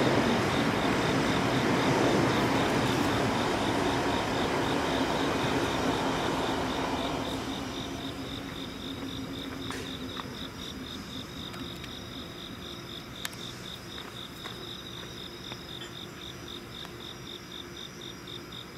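Crickets chirping in a steady, rapid pulsing trill, with the running noise of a train fading away over the first seven seconds or so. A couple of faint clicks later on.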